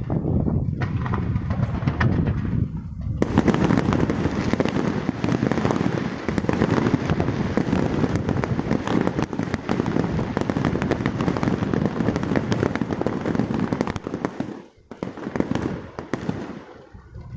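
Fireworks display: dense, rapid crackling and banging from about three seconds in. It breaks off briefly near the end, then a few last bangs follow.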